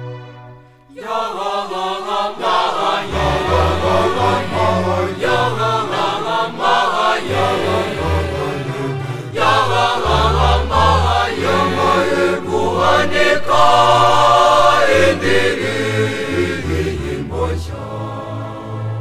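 A school choir singing a Kinyarwanda church hymn over a low bass line. The singing drops out briefly just under a second in, then comes back in and carries on.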